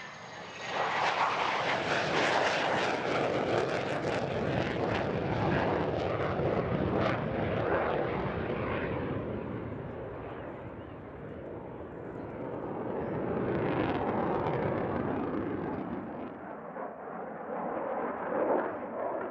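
Belgian F-16's Pratt & Whitney F100 turbofan running with the afterburner lit as the jet passes and climbs, a loud, steady jet roar. It comes in sharply about a second in, eases off for a few seconds midway, then swells again.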